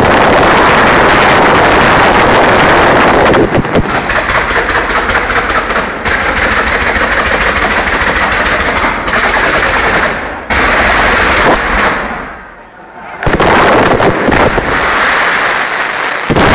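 Fireworks display in a dense barrage of rapid bangs and crackling, like machine-gun fire. It eases off briefly about twelve seconds in, then starts up again.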